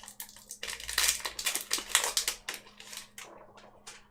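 A foil Yu-Gi-Oh booster pack wrapper being torn open and crinkled by hand, a dense run of crackles and rips, then the cards slid out.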